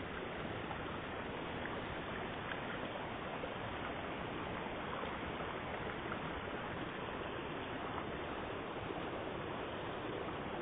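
Steady rush of running water flowing into a concrete fish pond.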